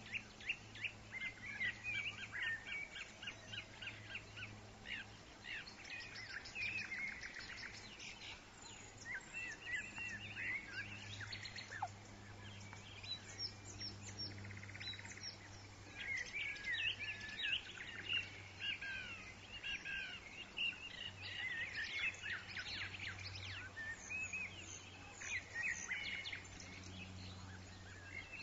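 Many small birds chirping in quick, overlapping calls, over a faint steady low hum.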